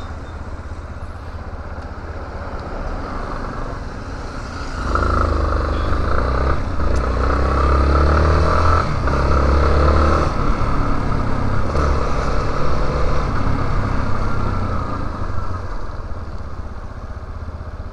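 Yamaha Lander 250 motorcycle's single-cylinder engine heard from a helmet-mounted camera: running low at first, then about five seconds in it pulls away, revving up repeatedly through gear changes, and eases off near the end, under a steady rush of road and wind noise.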